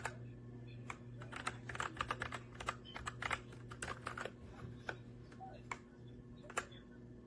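Keys being typed on a Redragon K617 60% mechanical keyboard: a quick flurry of keystrokes through the middle, with scattered single key clicks before and after.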